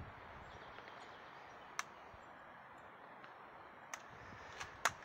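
Faint outdoor background noise with a few short, sharp clicks, the loudest near the end.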